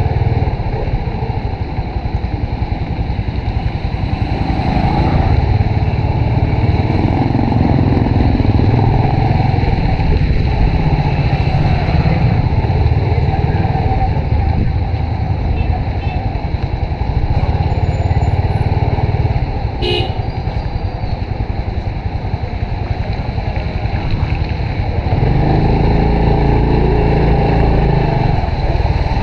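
Honda RSX 110 underbone motorcycle's small single-cylinder four-stroke engine running while riding, its pitch rising and falling with speed, under steady wind and road noise. There is one brief sharp sound about two-thirds of the way through.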